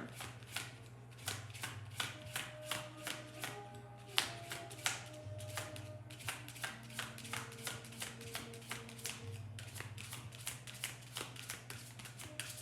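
A deck of cards being shuffled by hand: a run of soft snaps and slaps, a few a second, over quiet background music with long held notes.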